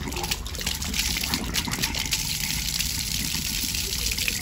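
Water gushing steadily out of an old outdoor hose bib's spout and splashing down. The valve's stem is out and the supply is turned on a little to flush debris from the valve body.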